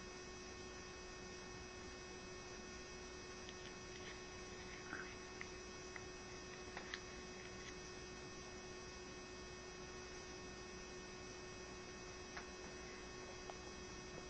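Steady electrical hum with a faint hiss underneath, and a few faint small ticks now and then.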